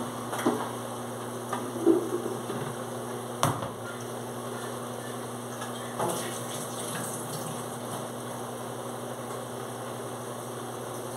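Dishes being washed in a kitchen sink: tap water running, with several clinks and knocks of dishes against the sink, the loudest about two seconds in, over a steady low hum.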